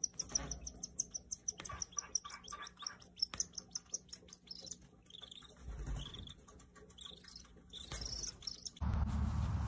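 Birds calling as two birds fight on the ground: a fast run of high, repeated chirps with sharp clicks for the first few seconds, then scattered shorter calls. Near the end a steady low hum takes over.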